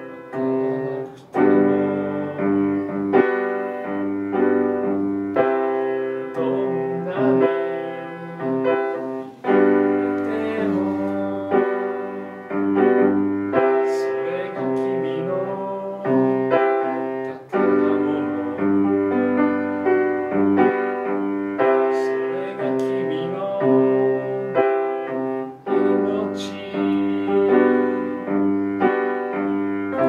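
Upright piano playing a song accompaniment: struck chords and melody notes, the harmony changing about every two seconds.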